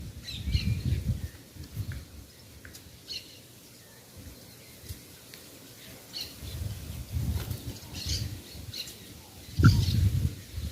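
Wild birds at a feeding spot: short, high chirps and calls scattered throughout, with bursts of wing flapping as birds fly in and out, heaviest near the start and again toward the end.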